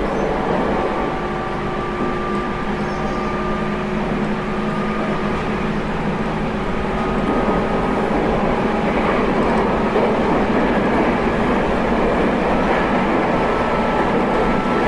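JR Kyushu 811 series electric train running: steady rolling noise with a motor and gear whine. The whine drifts slowly lower in the first half. The sound then grows a little louder and a higher whine rises near the end.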